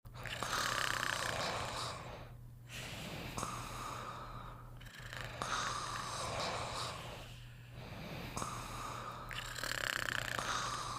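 Snoring in sleep: slow, regular noisy breaths, each a second or two long, with short pauses between them.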